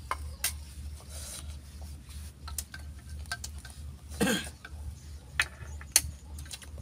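Chopsticks clicking and scraping against stainless steel pots and bowls as people eat, a sharp tick every second or so. A short voice-like sound falls in pitch about four seconds in, over a steady low hum.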